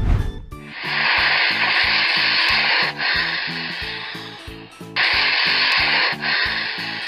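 Snake hissing in long, loud breaths that fade away, with a fresh hiss about five seconds in. This is the sound given for the western green mamba. A low thud comes at the very start, and children's background music with a steady beat plays under it.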